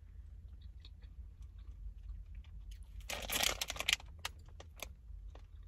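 Small plastic snack bag crinkling in the hands, loudest in a rustle about three seconds in, with scattered small clicks and chewing.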